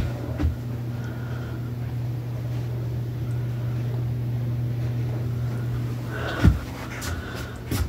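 Steady low hum of a running ceiling fan's motor, with a couple of soft bumps, one about half a second in and one near the end.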